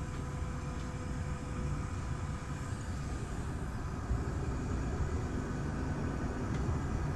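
Tram rolling along the track, heard from inside the car: a steady low rumble of the wheels and running gear.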